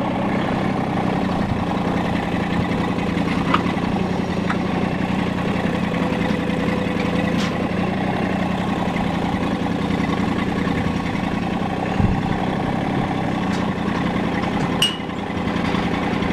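Massey Ferguson GC1710 sub-compact tractor's three-cylinder diesel engine running steadily while its front loader works, with a few short knocks along the way.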